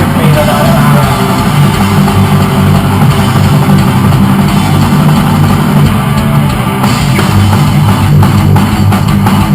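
Loud rock music with guitars and a drum kit playing continuously.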